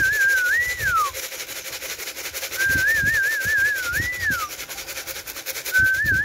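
A whistled call used to bring Birmingham Roller pigeons down into the loft, repeated every three seconds or so: a wavering trill that swoops up at the end and falls away.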